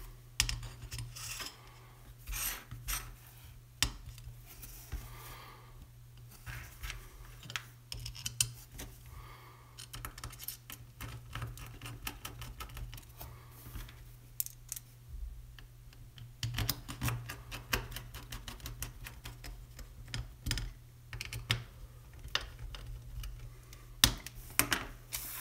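Irregular light clicks and scrapes of small metal parts on a stainless-steel plate as screws are fitted by hand to fix a water-cooling block to it, over a low steady hum.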